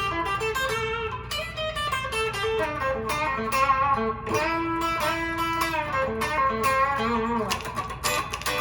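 Epiphone Les Paul Standard electric guitar played through an amplifier: a run of picked single notes and chords, some held and some sliding in pitch. It is on the bridge pickup, with the volume and tone push-pull knobs pulled, which splits the bridge humbucker to single coil.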